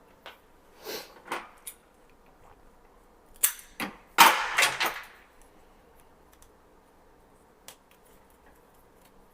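A few sharp clicks and snaps, with a louder, longer clatter about four seconds in: network cable wires being handled and punched down into a 110 punch-down block.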